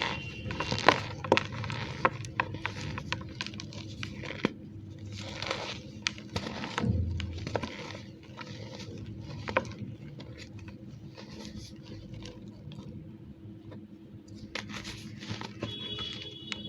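Block of gym chalk mixed with cornstarch being squeezed and crumbled by hand, giving an irregular run of crackles, crunches and squeaks with sharp clicks here and there.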